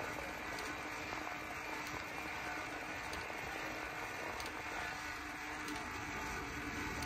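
Steady rolling noise of a noisy bicycle ridden along a path, with a few faint ticks and a faint steady hum underneath.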